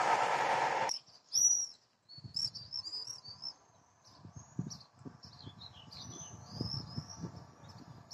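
A passing train's rumble, which cuts off abruptly about a second in. After that, small birds chirp and twitter repeatedly, with faint low thumps beneath them.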